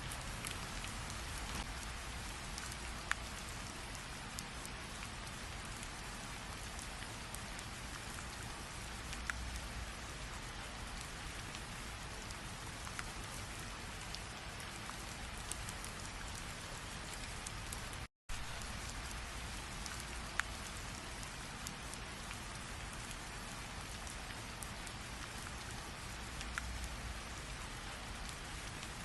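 Steady rain falling, an even hiss with individual drops ticking sharply now and then. The sound cuts out completely for an instant a little past the middle.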